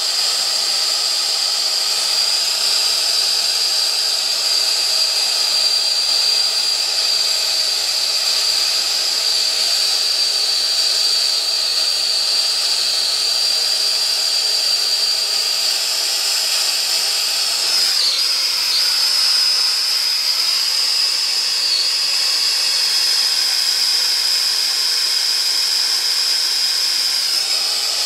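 Acetylene brazing torch flame hissing steadily on a copper pipe, with a high whistling tone that wavers briefly twice in the latter part, while a brazed patch is built up over a hole in the pipe.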